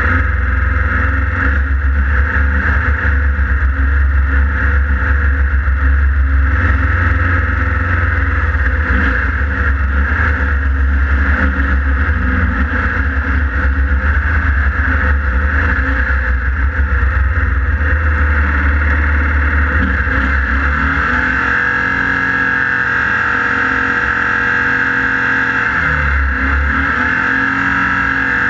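Class 1600 off-road race car's air-cooled VW engine running hard under load, heard from on board with heavy rumble. About three-quarters of the way in the low rumble drops away and the engine's pitch swings down and up a couple of times as it changes speed.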